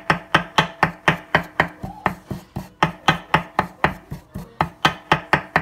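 Long kitchen knife chopping boiled beef on a wooden cutting board: a steady run of sharp knocks, about four a second, as the meat is minced fine.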